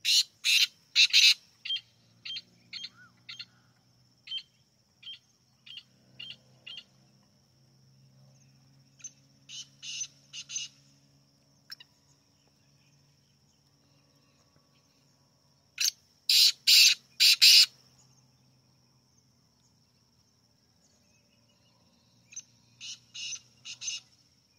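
Black francolin calling in repeated phrases of short, harsh, grating notes, several times over, loudest about sixteen seconds in, with softer scattered notes between the phrases.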